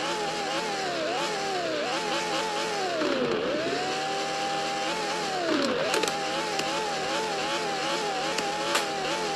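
Lamborghini Huracán's naturally aspirated V10 being revved while standing still: quick repeated blips of the throttle, the pitch climbing and falling, with one rev held high for about a second midway. A couple of sharp cracks come through late on.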